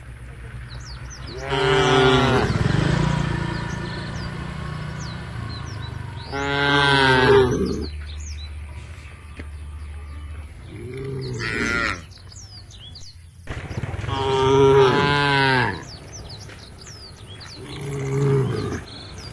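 Cattle mooing: five calls, each a second or two long, a few seconds apart, with faint bird chirps in the background.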